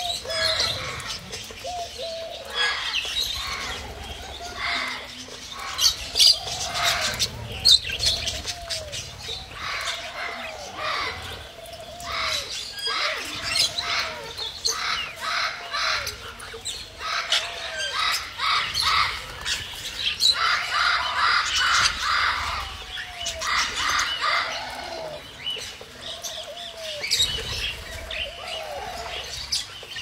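Mixed flock of small parrots (budgerigars, cockatiels, lovebirds) and pigeons chattering and chirping continuously while feeding, with a repeated arching lower call every second or two under the dense higher chirps.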